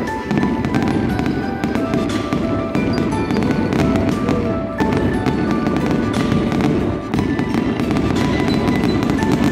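Aerial fireworks display going off: a dense, continuous run of bangs and crackles over a low rumble, with music playing underneath.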